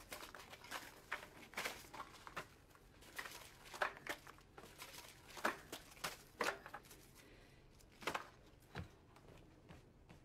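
Cardboard chip tubes being handled and put back on a store display: a scatter of short rustles and light knocks, with one deeper knock near the end.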